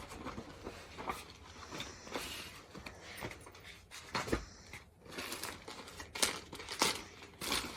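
Crinkling and rustling of clothes being handled, with irregular scratchy strokes that grow louder in the second half.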